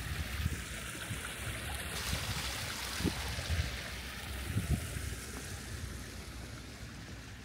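Water running steadily in a continuous hiss, with a few soft low thumps about three and four and a half seconds in.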